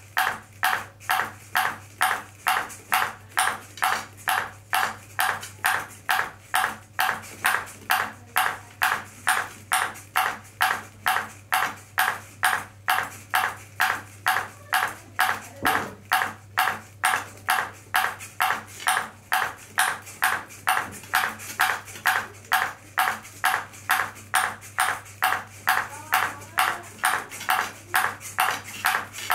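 Ping pong ball bouncing repeatedly on a robot's clear plastic plate: a sharp tick about twice a second, evenly spaced, over a steady low hum.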